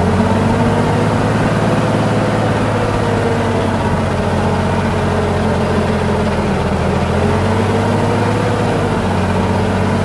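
Heavy diesel engine of an earthmoving machine running steadily, its pitch drifting gently up and down.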